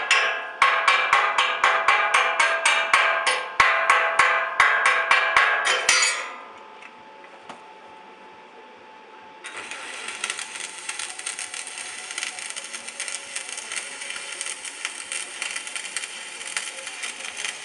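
A hammer striking steel in a quick, even run of about three blows a second. Then, about nine seconds in, an electric welding arc strikes and crackles with a steady hiss.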